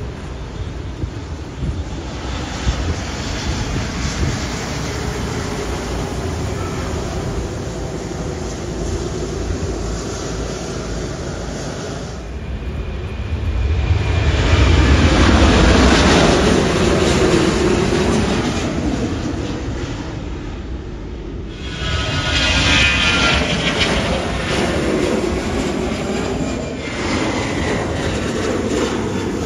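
Jet airliners taking off one after another: a loud, steady rush of engine noise at takeoff thrust with a deep rumble, swelling as each aircraft passes. It breaks off abruptly twice, and the loudest pass comes about halfway.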